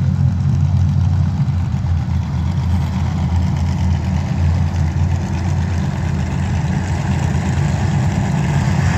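A pack of vintage-class dirt-track race cars running laps together, their engines blending into one steady, loud, low drone.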